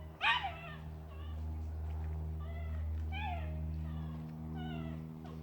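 A cat meowing again and again in short, arching calls, the loudest near the start, over a steady low hum.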